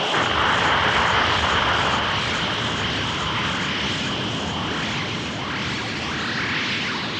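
Dragon Ball anime sound effect: a steady rushing noise with a high ringing tone held over it, and a few rising sweeps in the last two seconds.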